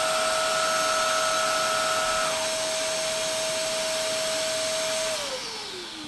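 Eureka wet/dry vacuum-mop running its self-cleaning cycle on the base, a steady motor whine. About five seconds in, the motor winds down with its pitch falling as the cycle ends on its own.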